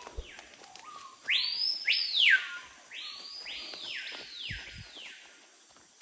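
A forest bird giving a run of loud whistled calls, each sweeping up sharply and then sliding down, several overlapping, loudest in the first few. Faint footfalls and twig ticks on the leaf litter underneath.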